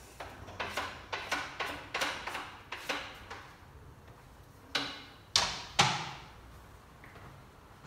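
Kitchen utensils knocking: a run of about ten quick taps, roughly three a second, then after a pause three louder knocks about half a second apart with a brief ring, the last the loudest.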